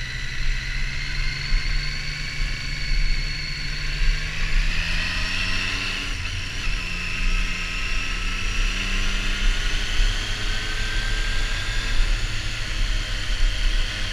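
Triumph Street Triple R's inline three-cylinder engine running on the road, its pitch climbing over the first six seconds, breaking briefly about six seconds in, then climbing again, over a steady low rumble of wind.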